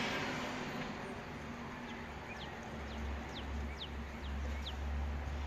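Jet noise from a FedEx Airbus A300F4-605R twin-engine freighter fading as it climbs away, with a low rumble underneath. A small bird calls over it, about eight short, quickly falling chirps from about two seconds in.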